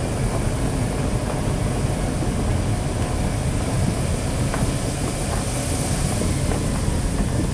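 Car driving along a forest road, heard from inside the cabin: a steady low rumble of engine and tyres, with a few faint knocks.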